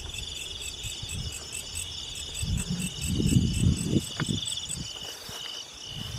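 Night chorus of crickets and other insects: a steady pulsing trill with a higher, evenly pulsed call on top that stops about five seconds in. Irregular low rumbling thuds come and go midway, louder than the insects.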